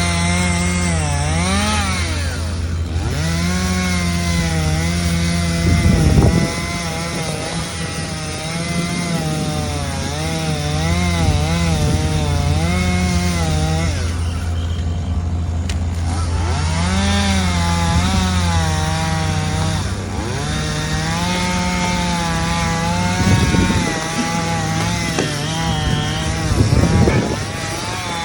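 Chainsaw running and cutting, its engine pitch rising and falling as it bites into the wood, with a short pause about halfway through. A few heavy low thumps are heard along the way.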